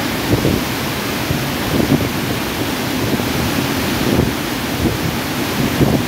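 Fast mountain river rushing over boulders in white-water cascades: a loud, steady rush of water with irregular low churning underneath.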